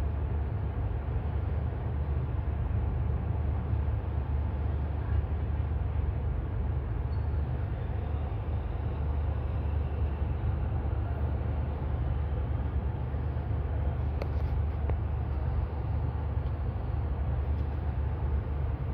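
Steady low outdoor rumble with no distinct events, and a faint click about fourteen seconds in.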